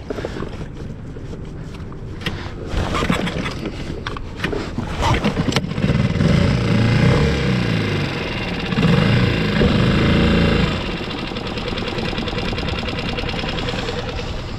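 Small tiller outboard motor on a skiff, which has been stalling out, being restarted: a few seconds of clicks and knocks, then from about six seconds in the motor runs with its speed rising and falling, settling to a steadier, quieter run about eleven seconds in.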